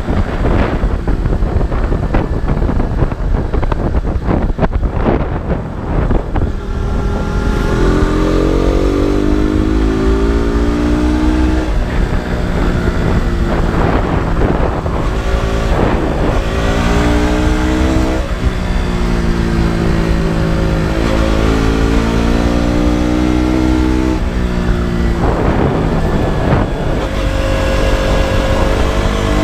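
KTM RC 200's single-cylinder engine and exhaust, ridden hard: a rough, unpitched stretch for the first several seconds, then the engine note climbs and drops again and again as it revs up through the gears and shifts, over constant low wind rumble.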